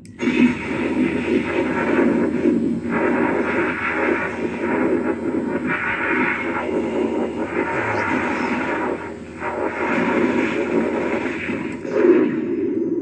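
Proton pack firing sound effect from a GPStar-upgraded Spirit life-size proton pack, in its 1984-movie sound set: a loud, noisy stream-firing blast that starts abruptly and holds for about twelve seconds. It dips briefly a few times and trails off near the end.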